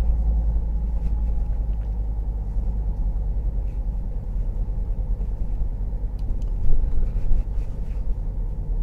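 Steady low rumble of a car's engine and tyres, heard from inside the cabin while driving slowly, with a brief louder bump about two-thirds of the way through.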